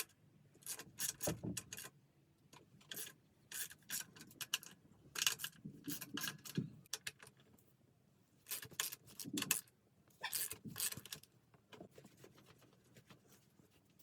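Irregular short rubbing and scraping noises, many separate strokes in clusters, from parts being handled and worked on a motorcycle under rebuild.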